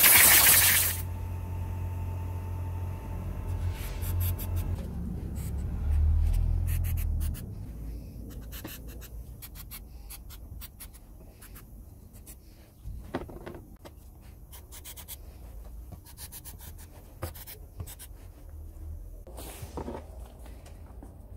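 Aerosol can of penetrating bolt-and-nut releaser hissing as it sprays the rusted screws of a cast-iron bone grinder, cutting off about a second in. A low rumble follows for several seconds, then quiet handling with small clicks and rubbing, and a shorter, fainter spray hiss near the end.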